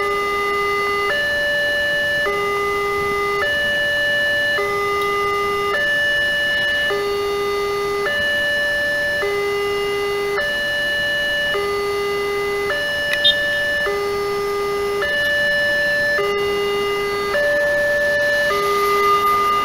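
Wantech railway level-crossing warning alarm sounding an electronic two-tone chime, a lower and a higher note taking turns, each held just over a second.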